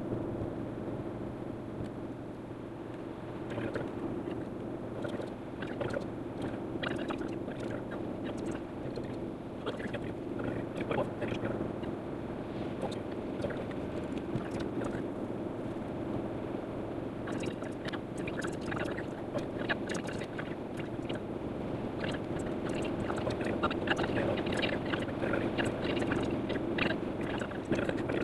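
Road and engine noise inside a moving car, picked up by a phone in a dashboard cradle and sped up fourfold, so it runs as a raised, steady hum. Many short clicks and rattles come through, more often in the second half.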